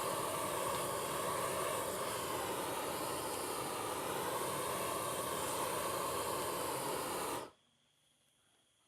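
Torch flame hissing steadily as it burns the carved wood; the hiss stops sharply about seven and a half seconds in.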